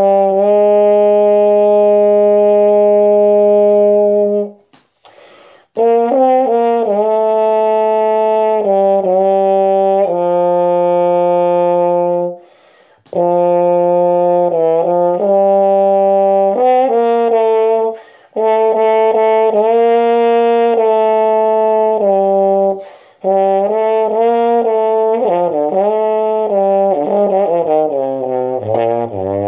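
Solo trombone with a wooden mute in the bell, playing a slow hymn melody: held notes in phrases broken by short breath pauses, ending with a quick run down to a low note.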